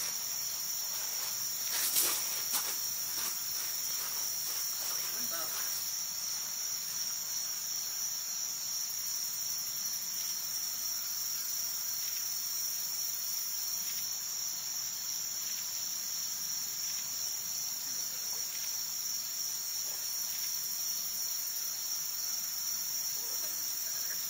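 Steady chorus of insects, a constant high-pitched shrill that never lets up, with a sharp click about two seconds in.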